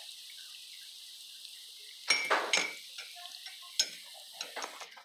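Hot oil sizzling steadily as hush puppies deep-fry, with a metal batter scoop clinking against a glass cup of water a little after two seconds in and a few more clicks near the end.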